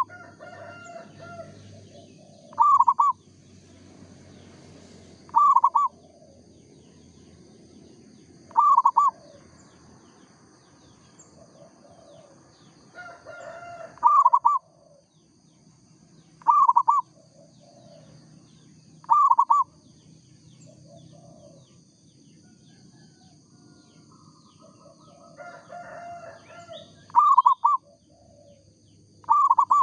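Zebra dove (perkutut) cooing: loud, short, clipped calls repeated about every two and a half to three seconds, eight times in all. Fainter calls from other birds and a steady high insect buzz run underneath.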